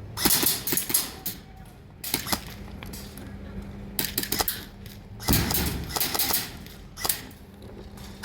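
Airsoft guns firing in several short bursts of rapid sharp clicks and cracks, with pauses between them.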